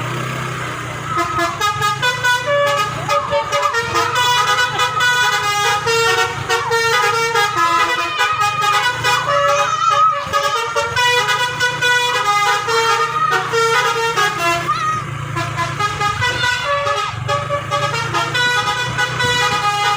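Bus basuri (telolet) multi-tone horn playing a World Cup tune, its notes changing in quick steps as a continuous melody, with a steady low drone beneath.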